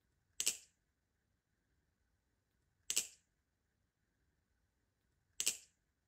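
Trainer balisong (Squid Industries Krake Raken V2.5) handles clacking together as the knife is flipped: three sharp clacks about two and a half seconds apart, each a quick double hit.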